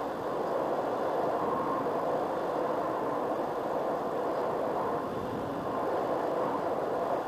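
Steady rushing noise of an FPV model airplane in flight, heard aboard the aircraft: mostly airflow, with the electric motor at very low throttle.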